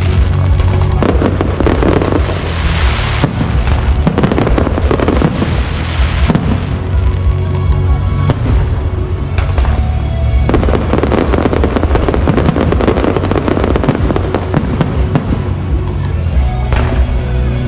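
Fireworks going off without pause: dense, rapid crackling with surges of heavier bursts every few seconds, over music.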